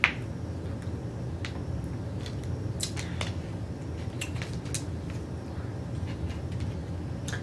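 Scattered light clicks and taps of eating: a plastic water bottle handled, with a sharp click at the start, then a fork and fingers on a plate. A steady low hum sits underneath.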